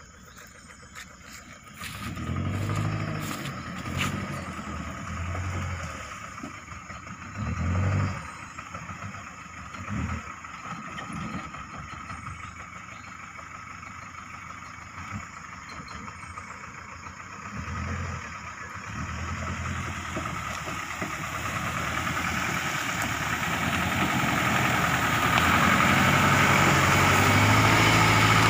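Mitsubishi L200 pickup's engine revving in repeated surges as it pushes through scrub, then growing steadily louder as the truck comes close, running loudest near the end.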